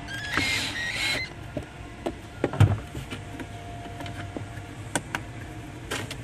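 Manual HVAC mode knob and its cable-driven vent mechanism on a Jeep Wrangler JK being turned to test it after cleaning: a short squeaky scrape in the first second, scattered clicks and a louder thump about two and a half seconds in, over a steady low hum.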